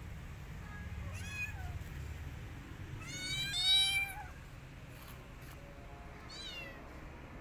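Young kittens meowing: three high cries, the loudest and longest about three seconds in, the other two short and falling in pitch.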